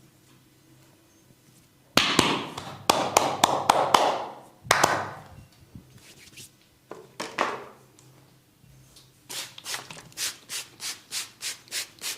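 Hands rubbing and stroking over skin and hair in a head and neck massage. About two seconds in comes a cluster of brisk strokes, a few more follow later, and near the end a steady run of strokes comes about three times a second.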